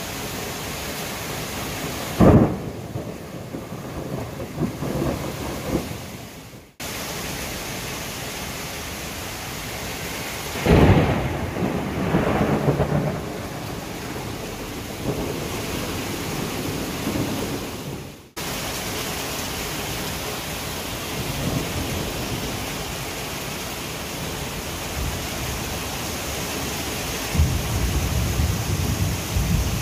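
Thunderstorm with a steady downpour of torrential rain. A sudden thunderclap about two seconds in and another about eleven seconds in each rumble on for a few seconds. The sound cuts out briefly twice.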